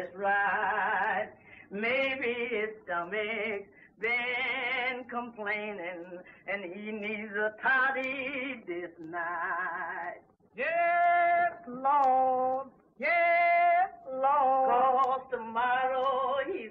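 A woman singing a slow tune unaccompanied, with a strong vibrato on the held notes. She sings in short phrases broken by brief pauses.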